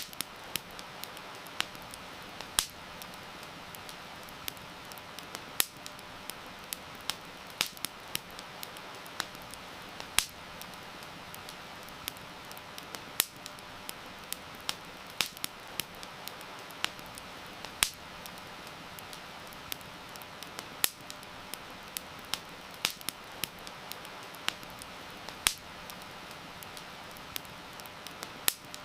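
Wood fire crackling with irregular sharp pops, several a second, over a steady hiss of heavy rain.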